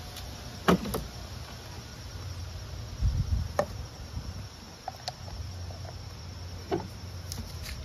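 Scattered light clicks and knocks of a plastic mower rear wheel and its steel axle bolt being handled on asphalt, with a low scuff about three seconds in. A steady background of insects runs underneath.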